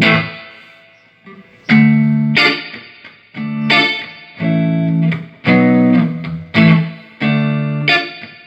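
Electric guitar played through a Peavey Classic 30 tube combo amp, working again after repair of bad filter caps and a wrong-voltage setup. Short strummed chords are struck about ten times, each ringing and fading before the next.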